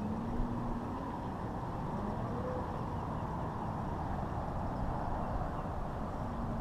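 Steady low rumbling outdoor noise, with a faint hum that rises slightly in pitch about a second in and again near the end.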